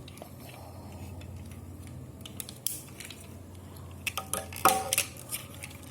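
Hard plastic parts of a transforming toy robot clicking and knocking as they are handled and snapped into place: a few scattered clicks, then a quick cluster of them about four and a half seconds in.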